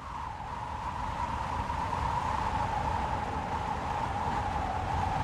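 Steady wind over open ground, with a low rumble under a hollow, whistling hiss, swelling up over the first second and then holding steady.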